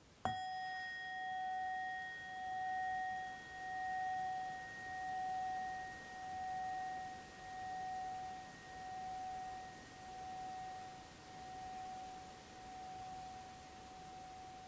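A bell-like metal instrument struck once, its clear tone ringing on and fading slowly with a slow pulsing wobble about once every second and a bit.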